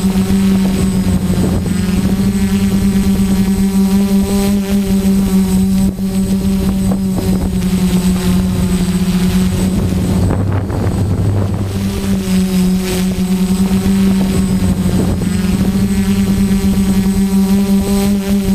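A DJI F550 hexacopter's six electric motors and 10-inch propellers buzz steadily in flight, heard close up from the GoPro mounted on the craft. Around the middle the pitch wavers and smears for a couple of seconds as the motors change speed.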